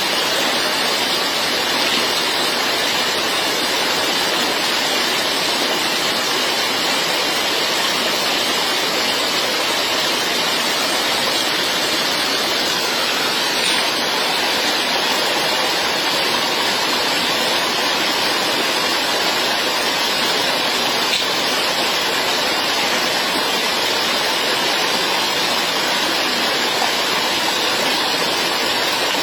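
Steady, even rush of water with no breaks.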